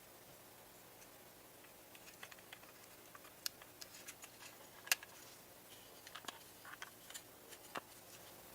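Scattered light clicks and taps, irregular and a few per second, starting about two seconds in, with the sharpest click near the middle, over faint hiss.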